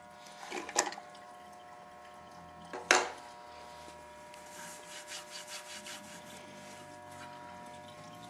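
Work noise from taking the car apart: two sharp knocks, the louder one about three seconds in, then a run of short scraping or rubbing strokes, over a faint steady hum.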